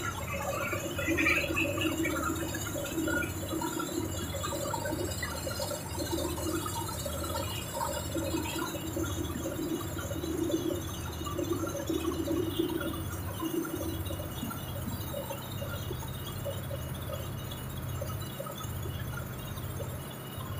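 Coal washing plant's vibrating coal screen and its caged drives running: a steady low machine hum, with a wavering higher tone that comes and goes and dies away about fourteen seconds in.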